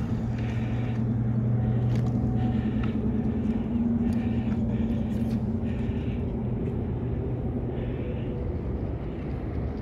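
Small engine running steadily with a low, even hum; its pitch lifts slightly about four seconds in.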